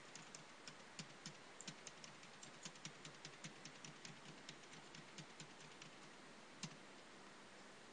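Faint computer keyboard typing: a quick, uneven run of keystrokes that stops about two-thirds of the way through, ending with one louder keystroke.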